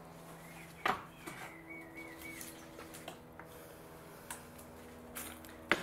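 Metal hand tools clinking against the car's steel bumper carrier: two sharp clinks, about a second in and near the end, with a few lighter taps between, over a faint steady hum.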